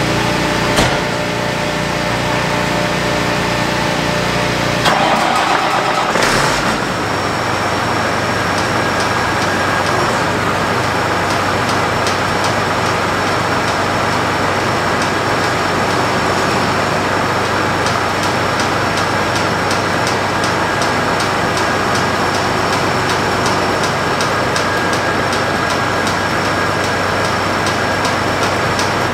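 An engine running steadily, with a change in its sound about five to seven seconds in.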